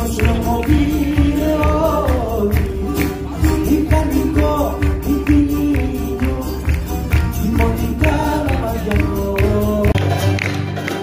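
Live Greek folk music from a small acoustic band: bouzouki and guitars playing a lively melody over a steady hand-percussion beat. The sound changes abruptly about ten seconds in, where another recording of the same music begins.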